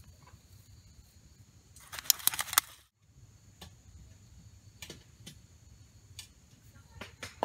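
Hands handling and sprinkling shredded nori onto a bowl of noodles, with light rustling and a short crackly burst of clicks about two seconds in. After a brief dropout, a few faint scattered clicks of handling follow.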